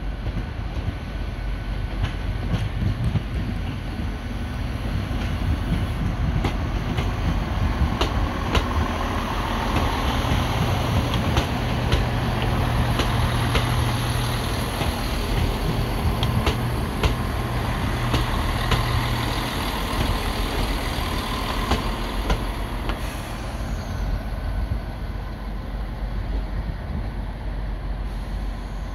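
Diesel train running with a steady low rumble that grows stronger for several seconds mid-way, with many sharp clicks and knocks scattered through its middle part.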